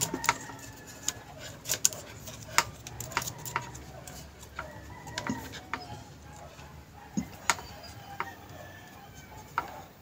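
Scattered light clicks and taps of small plastic parts and metal test probes being handled, about one every second, as test probes are touched to the terminals of an electric kettle's base switch.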